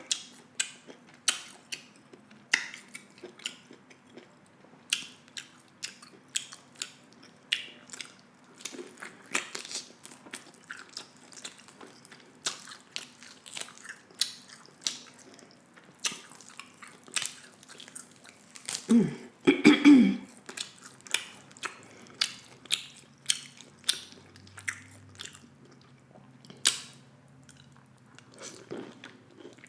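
Close-miked chewing and mouth sounds of a person eating, a steady run of short wet clicks and smacks. A brief louder voice sound comes about 19 seconds in.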